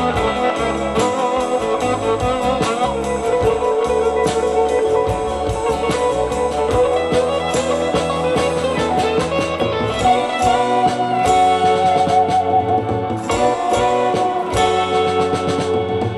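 Pioneer CS-501 loudspeakers playing back guitar music during a listening test.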